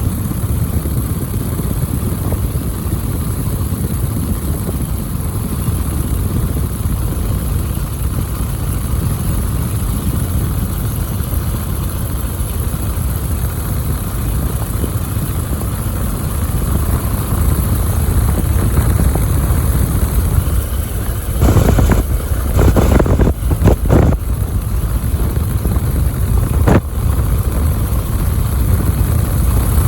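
Biplane's piston engine and propeller running steadily, heard from on board, growing a little louder past the middle. A few brief rushing noises come about two-thirds through, and a sharp click near the end.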